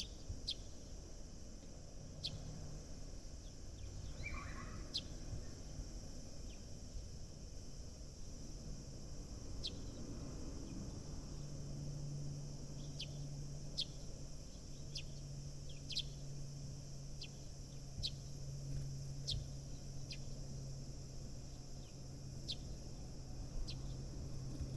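Sparrows chirping, short sharp chirps scattered irregularly, over a steady low hum that grows stronger about halfway through.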